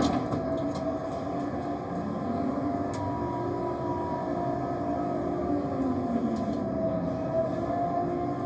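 Port bulk-handling grab crane's hoist and winch machinery running: a steady mechanical hum with several held tones that dip and rise slightly in pitch as the grab is worked, with a few brief clicks.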